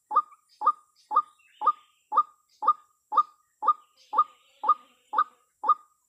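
White-breasted waterhen calls: a short 'kwak' repeated evenly about twice a second, the bird's monotonous call and the one used as a lure in waterhen trapping.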